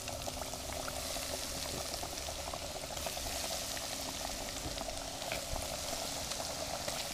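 Battered catfish nuggets deep-frying in hot oil in a cast-iron pot: a steady sizzle with fine crackling.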